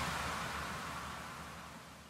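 The tail of an electronic music track fading out: a wash of hiss over a low bass, dying away steadily.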